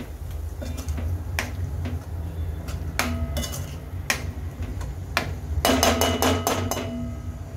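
Spatula scraping and knocking against a stainless steel kadhai as a thick masala paste is stirred and fried. Scattered single knocks, then a quick run of clanks about six seconds in that leaves the pan ringing.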